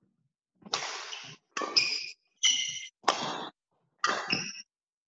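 Badminton rally in a sports hall: racket strikes on the shuttlecock, about one a second, each with a short echo, mixed with shoes squeaking on the court floor.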